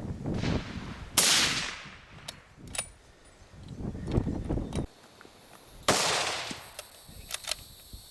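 Two rifle shots about five seconds apart, each trailing off in a long echo, with a few lighter clicks between them.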